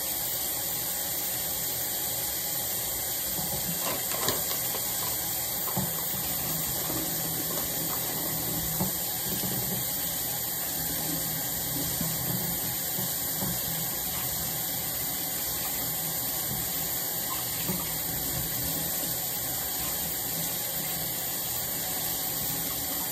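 Kitchen tap running steadily while a raw New York strip steak is rinsed under it, with a few light knocks.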